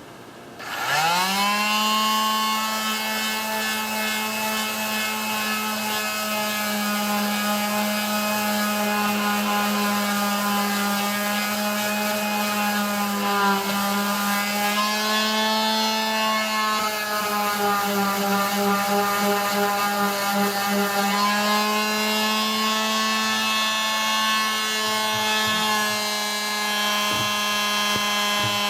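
Electric sander starting about a second in, spinning up quickly and then running steadily, its pitch sagging slightly now and then as it is pressed into the work: sanding the delaminated laminate to prepare it for epoxy.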